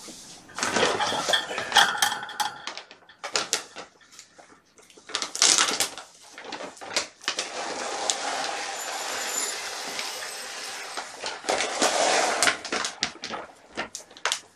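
Dry kitten kibble being poured and rattling into food bowls, with clatters of the bowls and rustling of the plastic food bag. A steady pour runs for a few seconds in the middle.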